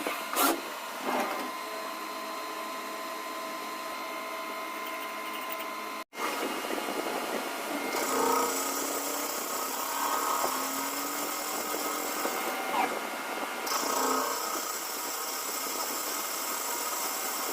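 CNC machine running, a steady mechanical whine and hiss. The sound cuts out for an instant about six seconds in, and a louder high hiss joins about two seconds later.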